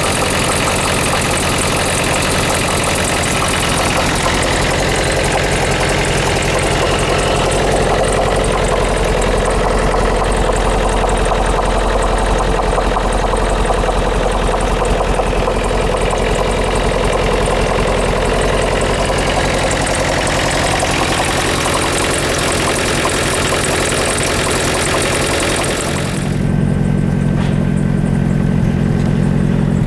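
Toyota Camry's 2C-T turbo-diesel engine idling with a rapid, steady knocking clatter. About 26 seconds in the sound changes abruptly: the high clatter drops away and a lower, steadier hum takes over.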